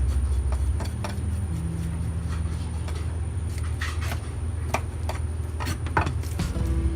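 Scattered short clicks and taps of a knife and fish being handled on a cutting board while gizzard shad is dressed for sushi, over a loud low hum that steps in pitch a couple of times.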